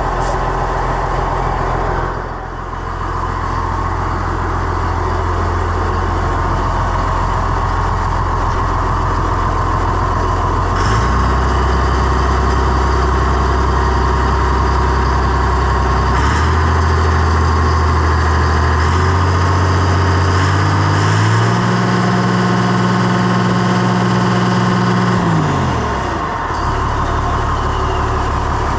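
Oliver 1855 tractor's six-cylinder engine running, first at a steady idle. Over the second half the engine speed is raised in several steps and held high for a few seconds. Near the end it drops back to idle.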